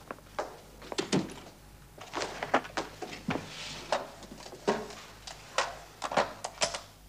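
Handling noises on a wooden desk: an irregular string of knocks and clicks as folders and a small box-shaped recorder are moved about, with a short papery rustle midway. Several sharp clicks come near the end as her hands work the recorder.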